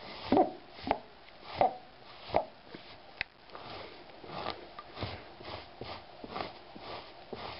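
Reusable pet hair remover roller rubbed back and forth over a braided rag rug, a rasping sweep with each stroke: four strong strokes in the first two and a half seconds, a sharp click a little after three seconds, then quicker, lighter strokes about two a second.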